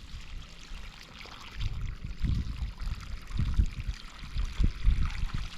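Irrigation water running and pouring along an open furrow into the crop beds, a steady hiss, with a few low dull thumps and rumbles in the middle and later part.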